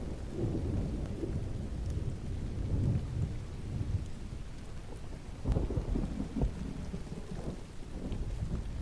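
Rumbling thunder under steady rain, the rumble swelling and crackling about five and a half seconds in.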